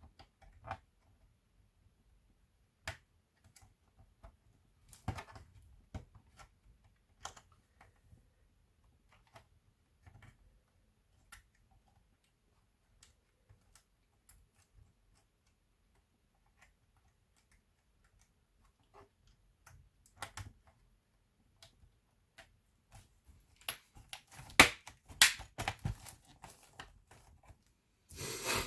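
Scattered small clicks and taps of hands handling laptop parts and tools, with a busier run of louder clicks about three-quarters of the way through and a brief rustle at the very end.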